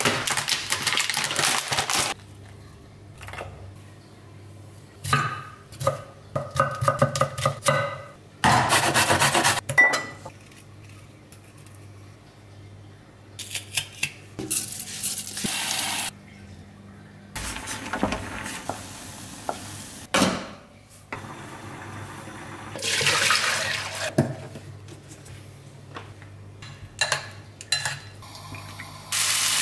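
A run of hands-on food-prep sounds. First a plastic packet of shiitake mushrooms crinkles, then a knife strikes a wooden chopping board in quick runs. Later a garlic press squeezes into a small ceramic bowl, and near the end sliced mushrooms are tossed by hand in a bowl.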